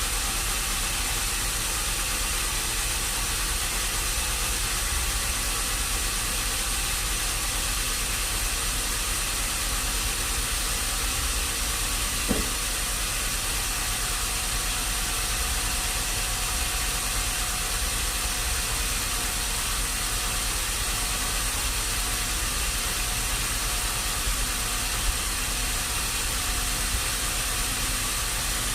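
Steady mechanical running noise with a strong even hiss, as of machinery running without change in load, with one faint click about twelve seconds in.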